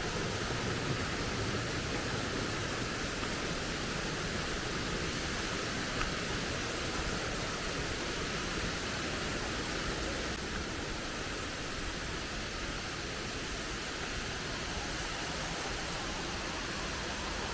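Steady rush of flowing water from a stream, an even hiss with a low rumble under it. A faint click about six seconds in.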